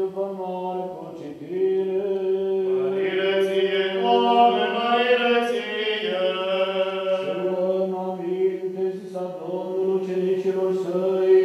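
Orthodox liturgical chant sung a cappella by voices. Long held notes move slowly over a steady low drone note.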